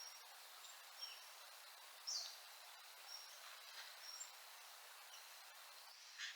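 Faint wild bird calls over a steady background hiss: scattered short, high chirps, with one louder, brief downward note about two seconds in and another call near the end.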